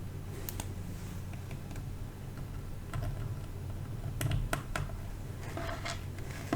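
Small, sharp clicks and taps of plastic pin headers being handled and pushed into a printed circuit board, scattered and irregular with a quick run of clicks past the middle, over a steady low hum.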